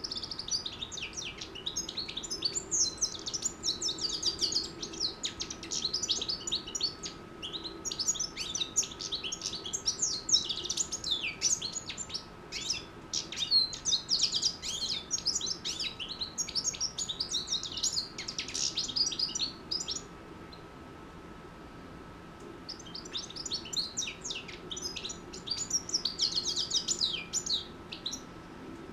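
A six-month-old European goldfinch singing a rapid, twittering song of quick chirps and trills, breaking off for a few seconds about two-thirds of the way through and then starting again.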